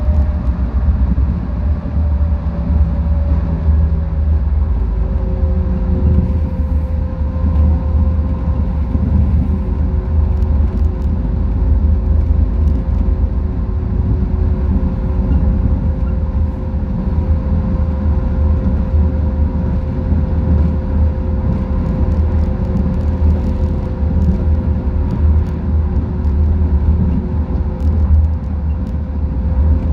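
Running noise of a Busan Metro Line 4 rubber-tyred light-rail train cruising along its guideway, heard from inside the front car. A steady low rumble carries a few faint motor whine tones, one of which falls slightly in pitch over the first few seconds and then holds steady.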